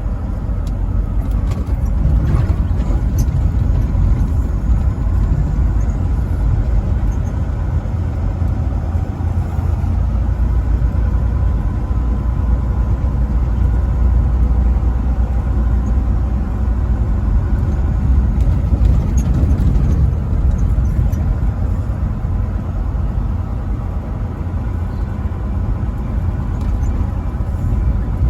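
Truck driving along a highway: a steady, loud low rumble of engine and road noise that swells slightly about two seconds in.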